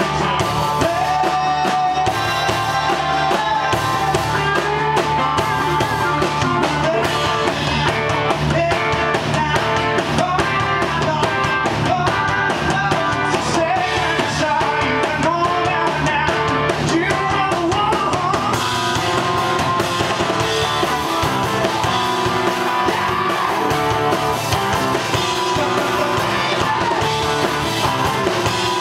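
Live rock band playing a song: acoustic and electric guitars and a drum kit, with a man singing lead.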